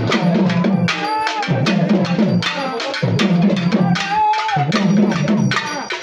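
Pambai drums beaten with sticks in a fast, driving rhythm: dense sharp strikes over a deep repeating boom. A short higher tone sounds over the drumming twice, about a second in and around four seconds.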